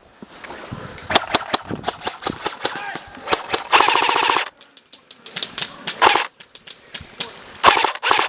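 Airsoft electric guns firing in short full-auto bursts: runs of rapid sharp clicks that start and stop several times. About four seconds in there is a louder half-second sound.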